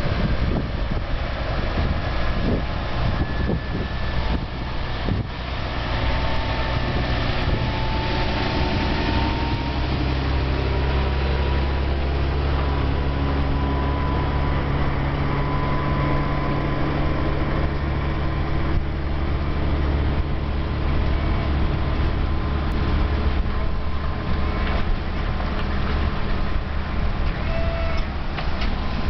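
A large vehicle engine running steadily, with a low, even hum and scattered short knocks and rattles over it.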